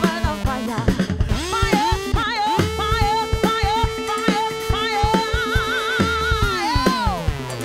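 Live afrobeat-funk band: a woman singing with vibrato over drum kit and percussion. A long held note under the voice slides steadily down in pitch near the end.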